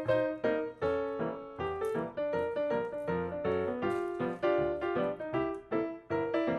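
Background piano music: a steady run of plucky, quickly fading notes in a light melody.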